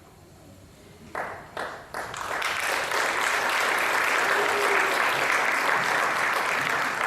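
Theater audience applauding: a few scattered claps about a second in, quickly building into full, steady applause.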